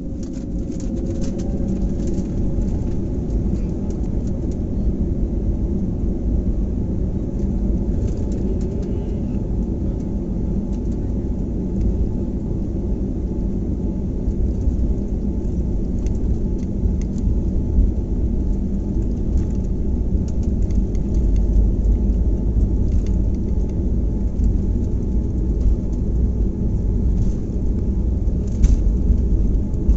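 Airliner engines at takeoff power heard from inside the cabin during the takeoff run: a loud, steady low rumble with an engine whine that rises over the first couple of seconds, and light rattles from the cabin.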